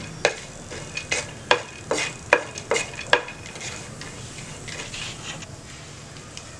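Watermelon seeds sizzling as they roast lightly in ghee in a nonstick frying pan, stirred with a wooden spatula. The spatula scrapes two or three times a second for about the first three seconds, then only the low, even sizzle remains.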